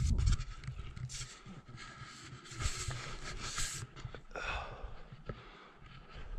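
A climber breathing hard close to the microphone after a strenuous down-climb, a string of short heavy breaths over the first few seconds, with a low rumble of wind buffeting the microphone, strongest at the start.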